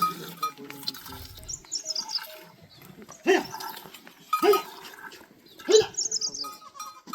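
Three short animal calls about a second apart, each rising then falling in pitch.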